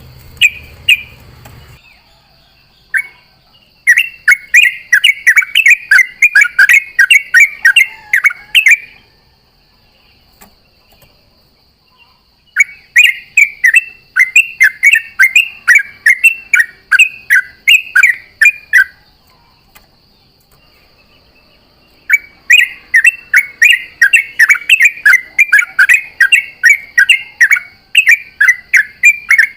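Yellow-vented bulbul (trucukan) singing its fast, bubbly chattering song in three long bursts of several seconds each, about three notes a second, with short pauses between bursts.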